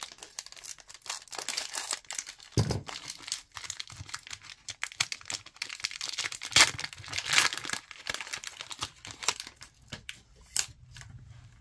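Foil trading-card booster pack wrapper crinkling as it is handled and torn open, with its louder crackles about six and a half to seven and a half seconds in.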